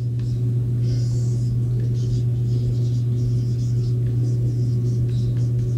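A steady low electrical hum, with a few faint, short scratchy strokes of a marker writing on a whiteboard.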